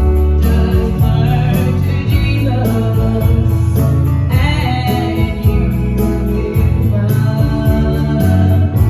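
Gospel music: a group singing over instrumental accompaniment with a strong bass line.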